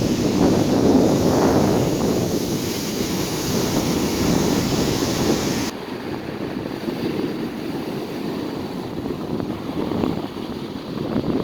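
Stormy sea surf breaking on a beach, with wind buffeting the microphone. A little past the middle the sound abruptly turns duller.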